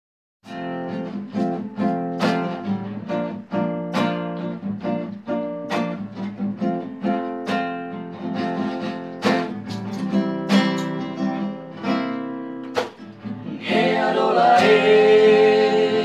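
Acoustic guitar plays an instrumental intro of strummed and plucked chords with sharp attacks and ringing sustain. About fourteen seconds in, male voices start singing over it.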